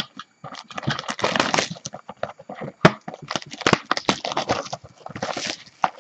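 Clear plastic shrink wrap being torn and crinkled off a cardboard trading-card box: dense, crackly rustling with one sharp snap about three seconds in.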